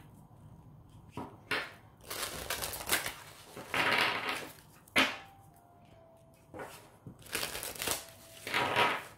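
A deck of large oracle cards being shuffled by hand: repeated bursts of card-on-card rustling, with a sharper slap about five seconds in.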